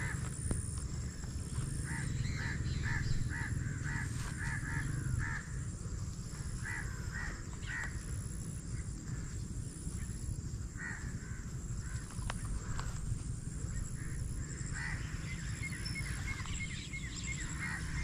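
Crows cawing in several bouts of short, quickly repeated calls, over a steady low rumble.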